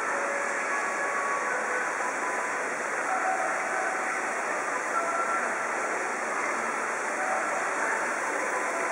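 Steady rush of running water from a garden fountain and water channel.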